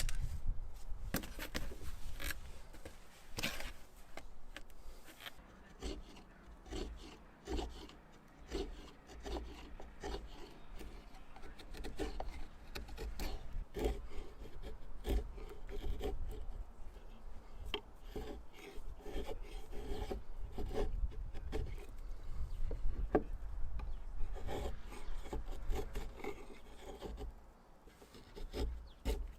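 Hand-carving blade shaving an oak handle blank in many short, irregular scraping strokes.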